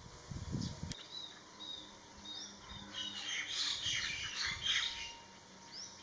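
Small birds chirping and twittering: short high chirps and little rising and falling notes, busiest around the middle.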